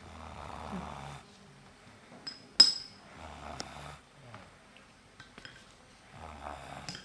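A sleeping boy snoring: three rough snores about three seconds apart, each with a low rattling rumble. Between the first two snores comes a single sharp clink, the loudest sound of all.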